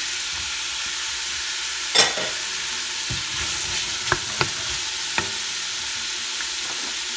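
Diced vegetables sweating in olive oil in a stainless steel stockpot, a steady sizzle. A wooden spoon stirs them and knocks against the pot a few times, loudest about two seconds in.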